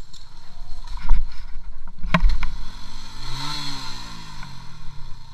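Motorcycle engine running at low revs, picked up by a helmet camera, with two sharp knocks about one and two seconds in; near the middle the engine's pitch rises and falls once.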